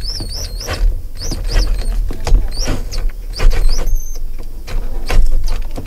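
Cordless drill running with a bolt-extractor bit in a stripped steering-wheel hub bolt, the bit squealing against the metal in several short rising-and-falling chirps over a low motor hum, with sharp clicks. The bolt is too tight and the bit is not gripping it.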